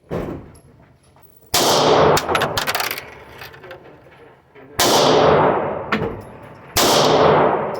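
Three gunshots at a gun range, irregularly spaced, each ringing out with a long echo, with a few faint clicks between them.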